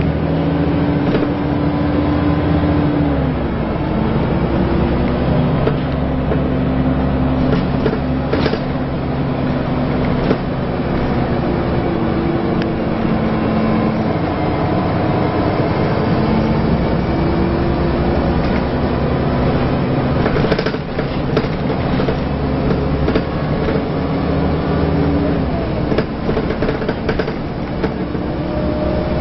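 Scania L94UA Wright Solar Fusion articulated bus heard from inside while under way: the diesel engine and ZF automatic gearbox running, their pitch shifting up and down as the gears change, over steady road noise. A few sharp rattles or knocks from the body come through now and then.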